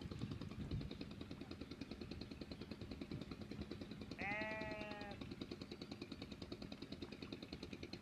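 A small engine running steadily with a rapid, even beat. About four seconds in, an animal bleats once, a drawn-out call lasting about a second.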